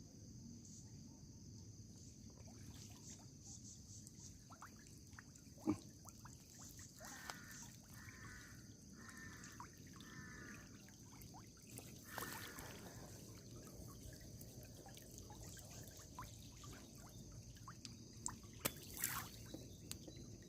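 Faint water trickling and dripping, with small splashes, over a steady high insect drone. A short run of four chirping calls comes about seven to eleven seconds in.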